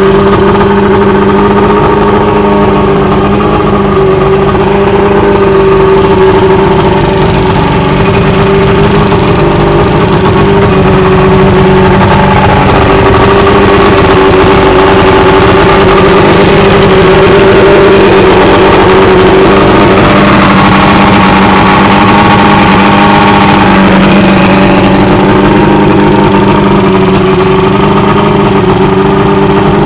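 Boat outboard motor with its cowling off, running steadily at idle on its first start of the season.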